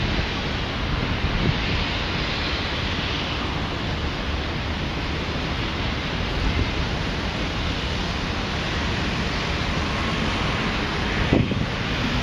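Steady wind rushing over the microphone, with a brief knock near the end.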